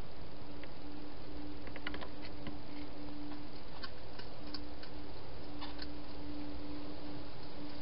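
Hedgehog feeding at a bowl inside a plastic feeding box: irregular small clicks and crunches of chewing, over a steady hiss and a low hum that comes and goes.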